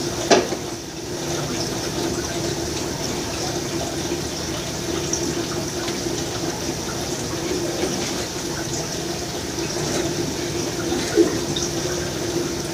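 Steady trickling, splashing water with a faint low hum underneath, as from an aquarium filter running. A single sharp knock comes just after the start.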